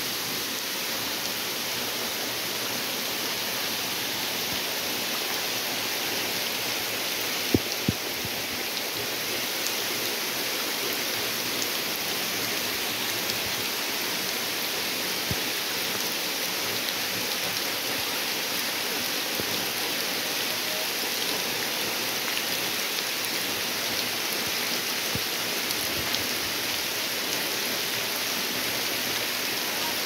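Waterfall water spilling and dripping down a mossy rock face, a steady splashing hiss like heavy rain, with two sharp knocks about seven and a half seconds in.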